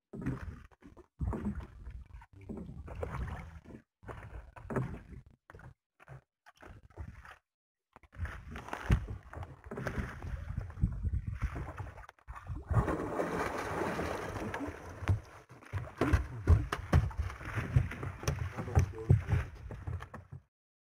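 Wind buffeting the microphone and water sloshing against the hull of a small fishing boat at sea. The noise comes and goes in irregular gusts and cuts out abruptly several times.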